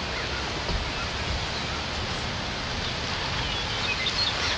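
Steady outdoor background hiss from among trees, with a few faint high bird chirps near the end.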